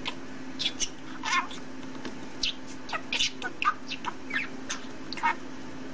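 A lovebird chirping in many short, high calls, with a pet cat's meows mixed in, over a steady low hum.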